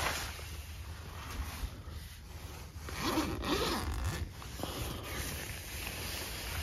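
Tent door zipper being pulled open, with a louder, longer pull about three seconds in.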